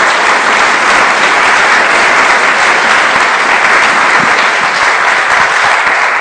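Conference audience applauding steadily: many people clapping at once, loud and sustained.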